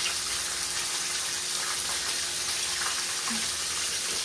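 Chicken frying in a pan, a steady sizzle.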